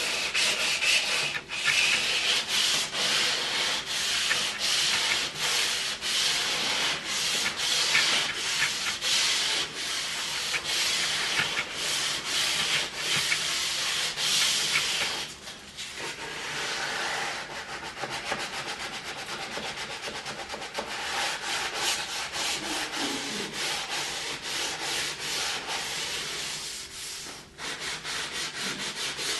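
Sandpaper rubbed by hand in quick back-and-forth strokes along the edge of real wood veneer, bevelling it to blend into the old window sill. The strokes break off briefly a few times and are softer in the second half.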